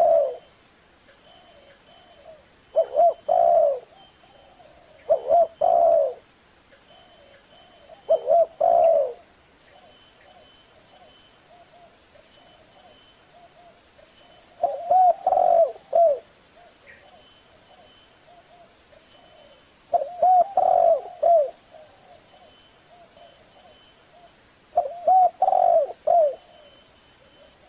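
Spotted dove cooing: short phrases of two or three low coos, repeated about every three to six seconds with quiet pauses between.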